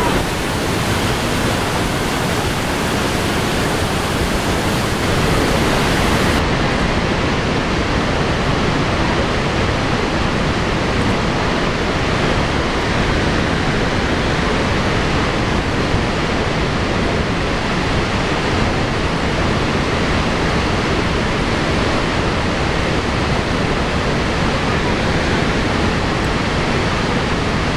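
Steady, loud rush of Vernal Fall, a big waterfall in full flow, heard close to where the water pours over the brink.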